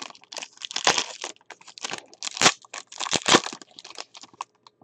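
Foil wrapper of a 2013 Panini Limited football card pack being torn open and peeled back by hand: a run of irregular crinkling and tearing crackles.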